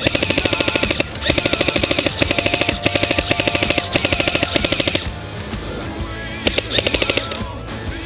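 Airsoft electric gun firing full-auto in several rapid bursts, with one more short burst near the end; background music plays underneath.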